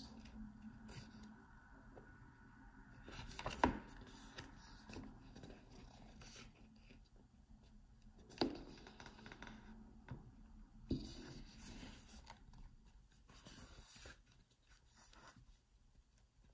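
Pages of a thick paper booklet being turned by hand: soft rustling and sliding of paper, with three sharper page flaps spread through.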